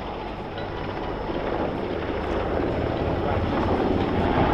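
NH90 twin-engine military helicopter flying overhead, its rotor beating and its engines whining, growing steadily louder as it comes closer.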